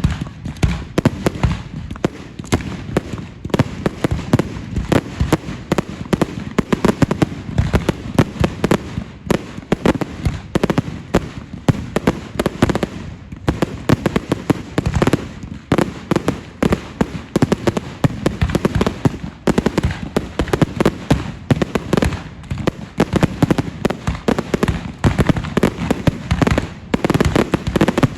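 Fireworks going off in a dense, unbroken run of rapid cracks and bangs, many every second.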